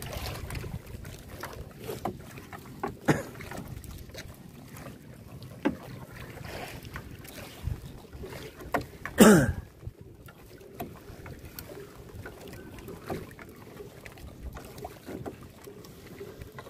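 A gill net being hauled by hand into a small wooden outrigger boat, with water washing against the hull and wet netting rustling, broken by scattered light knocks. About nine seconds in comes one loud whoosh that falls in pitch.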